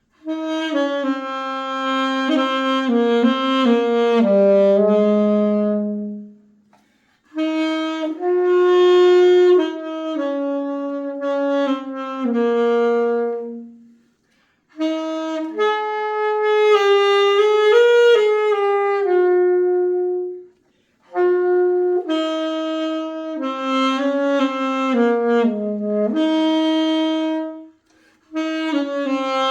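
Unaccompanied solo saxophone playing a melody in four phrases, each a run of held and moving notes, with short breaks for breath between phrases.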